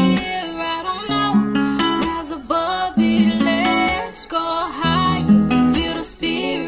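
Background music led by acoustic guitar, with some singing.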